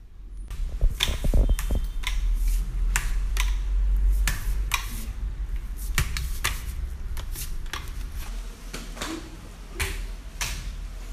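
Metal crutches knocking on a hard floor with shuffling footsteps as someone walks slowly on them, a sharp knock about every half second.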